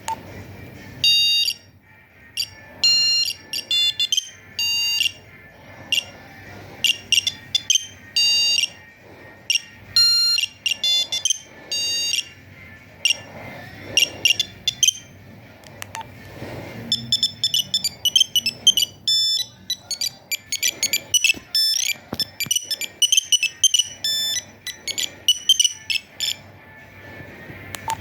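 Nokia 2100 mobile phone playing a monophonic ringtone through its small speaker: a quick melody of short beeping notes, one at a time and changing in pitch, with a brief break about halfway.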